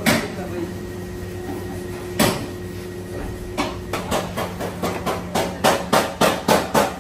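Hammer blows on the sheet metal of a Mazda Carol's accident-damaged body, panel beating: two single blows, then from about three and a half seconds in a quick, even run of blows, about three or four a second.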